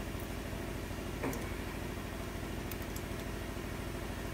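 A machine runs steadily in the background, a low hum with a fast, even pulse. About a second in, a wrench clinks once against a steel brake line union fitting.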